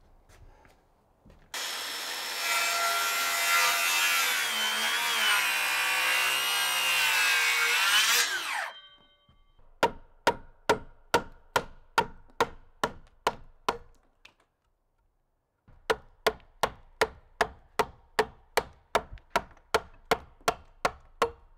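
A power saw runs for about seven seconds, its pitch wavering under load. Then a chisel is driven with steady blows into the end grain of a log, about two to three strikes a second, in two runs with a short pause between them.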